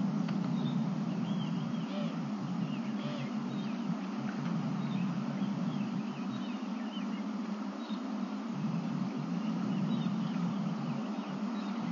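Steady low rumble with birds chirping faintly over it, in short scattered calls.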